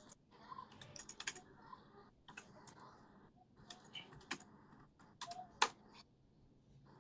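Computer keyboard typing in irregular bursts of keystrokes, with a sharper single click a little after five and a half seconds.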